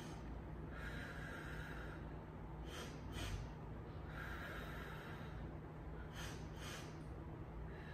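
Rhythmic nasal breathing during Pilates side leg kicks. Each cycle is a longer exhale followed by two quick sniffing inhales, and it runs twice.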